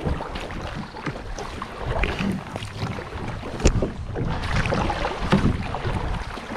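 River water rushing and splashing around a small paddled whitewater boat moving through current, with a single sharp knock about three and a half seconds in.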